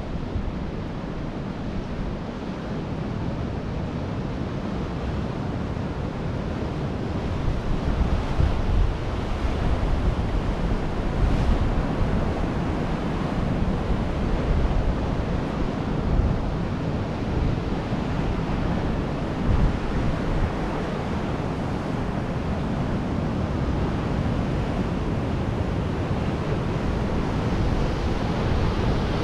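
Ocean surf washing onto a sandy beach, with wind rumbling on the microphone.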